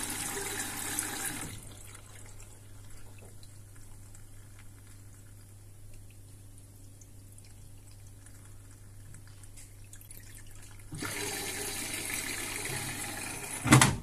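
Water rushing and splashing in the open detergent drawer of a Samsung washing machine as hydrogen peroxide is poured in from a plastic jug, over a steady low machine hum. The rush stops about a second and a half in and starts again about eleven seconds in. Just before the end, a sharp knock as the drawer is pushed shut.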